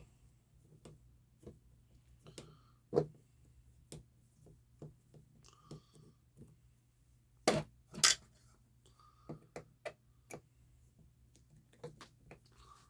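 Scattered small clicks, taps and knocks of hand tools and small parts being handled while an RC truck is taken apart, louder knocks about three and seven to eight seconds in, over a faint steady hum.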